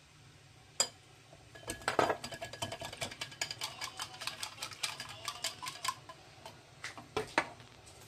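Wire whisk beating raw egg in a glass bowl: rapid, irregular clicking of the wires against the glass for about six seconds, after a single clink about a second in.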